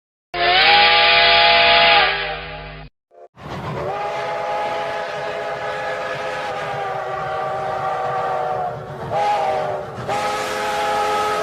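Steam locomotive chime whistle blowing, several notes sounding together as a chord, with a hiss under it. It gives a blast of about two and a half seconds, then a long blast of some five seconds, a short toot, and another long blast near the end.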